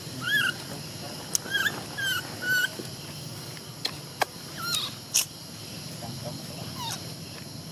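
Baby monkey giving a series of short, high squeaky whimpering calls, about five in the first five seconds, each bending in pitch, with a few sharp clicks in between.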